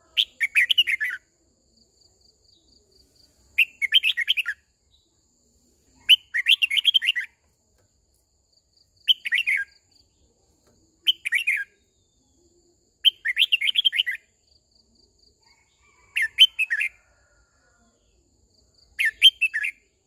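Red-whiskered bulbul singing: eight short, loud warbling phrases of about a second each, with pauses of one to three seconds between them.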